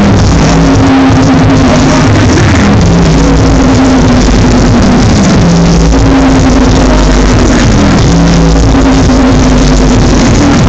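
Drum and bass played very loud over a club sound system, with long held bass notes that change pitch every second or two. It is so loud that it overloads the phone's microphone into a distorted wash.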